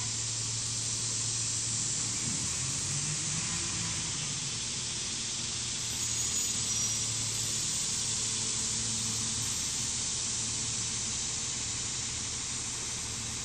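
Garbage truck's engine running steadily at a distance, a low hum under a broad steady hiss. The hum rises briefly in pitch about two to three seconds in.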